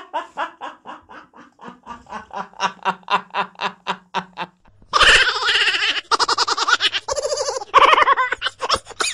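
A man laughing hard in quick, even pulses, about five a second. Just under five seconds in it cuts to a louder, harsher run of rapid bursts over a steady low hum.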